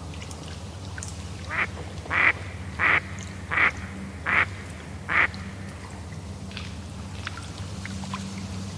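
A duck quacking six times in a row, about one call every 0.7 seconds, over the steady sound of lake water lapping.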